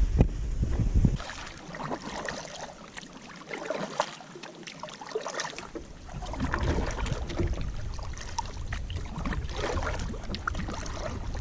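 Water splashing and sloshing around a kayak, in irregular bursts with small knocks. Wind rumbles on the microphone for about the first second and again from about six seconds in.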